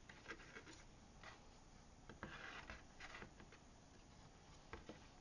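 Faint rustling and light tapping of card pieces being handled, with a few soft clicks and a short rustle a little over two seconds in.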